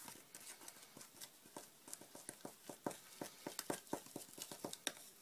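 Small spatula stirring talc into gesso and white glue in a small cup, a thickening paste: faint, quick, irregular taps and scrapes of the spatula against the cup, several a second.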